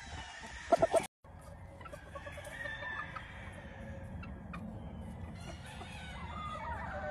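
Gamefowl chickens clucking and calling, with three loud short calls just before a second in and a brief cut-out right after. Quieter scattered clucks follow, and a rooster's crow begins near the end.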